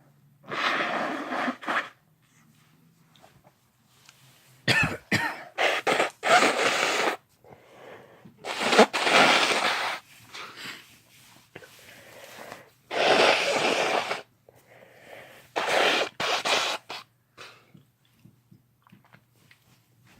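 A person forcing air out explosively in five short fits, in the manner of coughs or sneezes. The second fit is a quick run of several outbursts; the others last about a second each.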